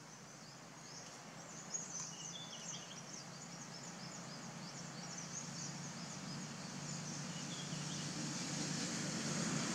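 Forest ambience: a steady wash of fast high-pitched insect and bird chirping, with a few short separate chirps about two seconds in and again near the end. A low hum grows gradually louder underneath.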